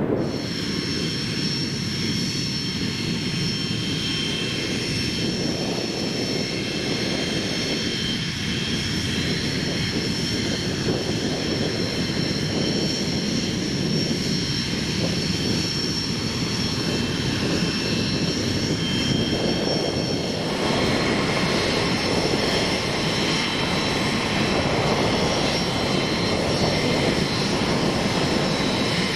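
Jet aircraft turbofan engines running: a steady rushing sound with a high whine of several tones. The sound changes abruptly about two-thirds of the way through.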